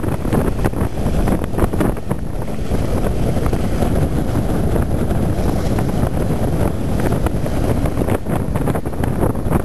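Wind buffeting the microphone over the steady rush and splash of water along a sailboat's hull as it heels and cuts through the waves.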